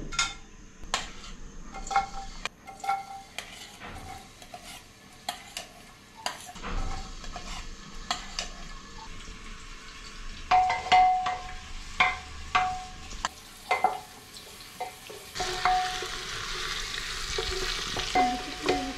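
Wooden spatula and spoon knocking and scraping against a metal pressure-cooker pot, each knock ringing briefly. In the last few seconds onions sizzle in hot oil as they are stirred.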